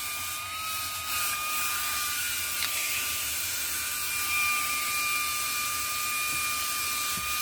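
Dovety portable handheld car vacuum running steadily: a high motor whine over the hiss of rushing air, with a single click about two and a half seconds in.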